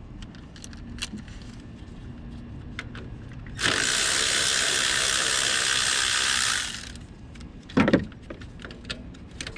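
Hand ratchet and socket clicking in short runs on starter fasteners. A loud steady hiss lasts about three seconds in the middle, and there is a single clunk near the end.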